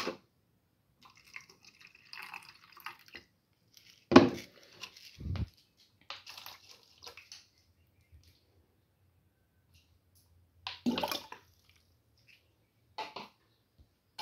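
Water splashing and dripping in a tub holding plastic betta cups, with a sharp knock about four seconds in and a few lighter clicks later.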